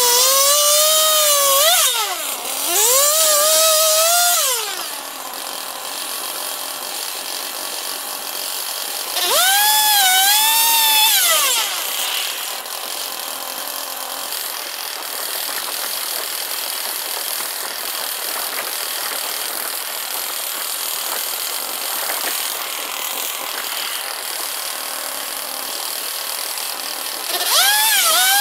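Engine of an M6 Turbosawmill swing-blade sawmill revving up in several short bursts, the pitch rising and falling in each, and dropping back to a steady, quieter run between them.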